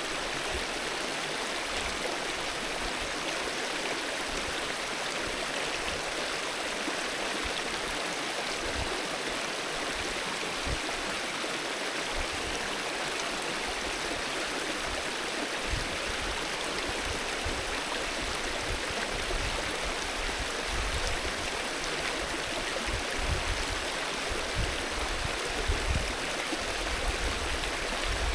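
Mountain river flowing in a steady, even rush of water, with occasional low rumbles that come more often in the second half.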